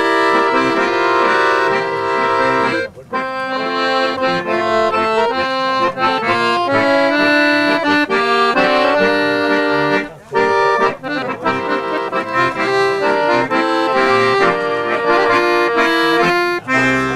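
Two chromatic button accordions playing a tune together in sustained chords and melody, with short breaks in the playing about three and ten seconds in.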